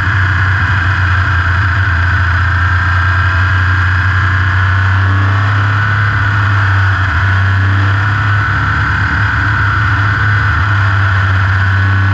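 Open-wheel race car's engine running at a steady speed, heard from an onboard camera on the car. The pitch wavers only slightly and never climbs into a hard rev.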